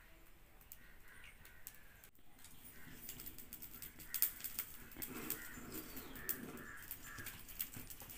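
Faint crackling and snapping of a wood fire under a clay pot as dry twigs are fed into the stove, with many sharp clicks from about two seconds in. Birds call in the background.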